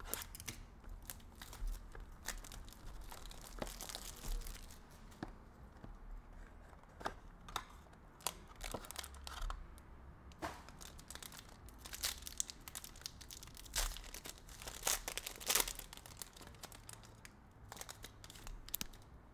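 A sealed trading-card box being cut open with a blade, then a foil card pack crinkling and tearing open, in many short, irregular crackles.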